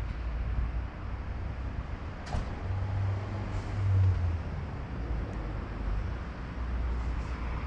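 Urban street ambience with a low rumble of road traffic; a vehicle's engine hum swells briefly about three to four seconds in.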